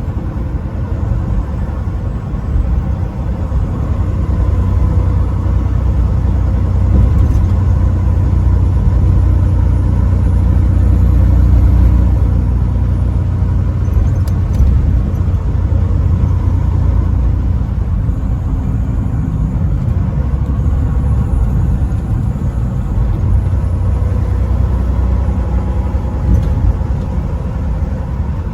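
Semi-truck driving on the highway: a steady, loud low rumble of engine and road noise.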